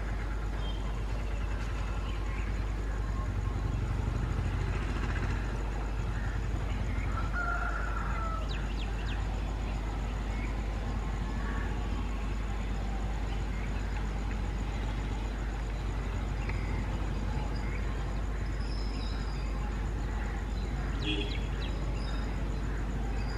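Outdoor ambience: scattered bird calls, some like fowl or a rooster, over a steady low rumble.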